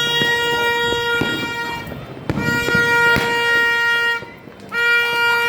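A horn sounding three long, steady blasts, each one to two seconds, with a few sharp cracks between them.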